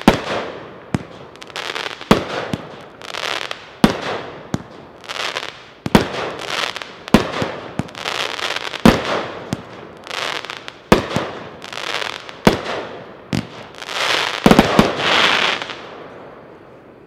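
Epic 'Monster Truck' 16-shot fireworks cake firing: shot after shot, each with a sharp crack followed by a short spreading crackle as the stars burst. The loudest cluster of cracks comes near the end, then the last crackle dies away as the cake finishes.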